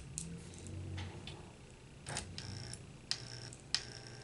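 Light clicks and taps of small metal tools and parts during work on a model locomotive, scattered and irregular. Two of them, about three seconds in and near the end, leave a brief high ring.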